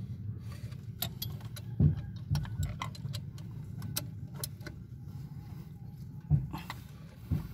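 Scattered metallic clicks and knocks, about seven over several seconds, the loudest about two seconds in and near the end, as hands work at the alternator mounting and belt tensioner pulley in a car's engine bay. A steady low hum runs underneath.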